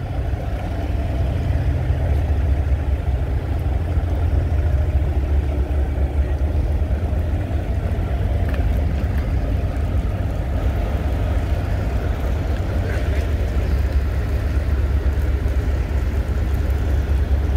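Big diesel semi-truck engine idling, a steady low rumble.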